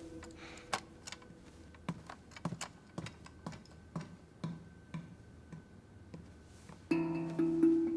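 Footsteps on a hard floor, light knocks with low thuds about two a second. Near the end, plucked-string music comes in loudly with sustained notes.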